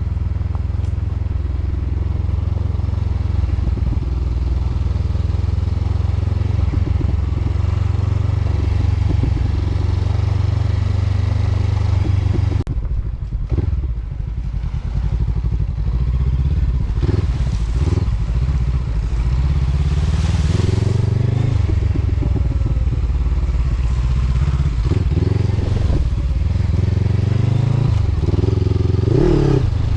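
Honda CB500X motorcycle engine running under way, heard from the bike. The engine note eases off briefly about 13 seconds in, then rises and falls with the throttle through the rest of the ride.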